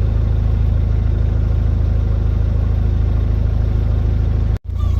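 Narrowboat engine running steadily with an even low throb. It drops out for an instant near the end.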